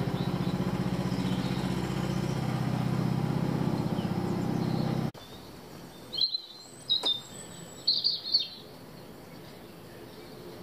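A small engine drones steadily with a pulsing beat, then cuts off abruptly about halfway through. After that, a bird gives several short, high chirps over faint background noise.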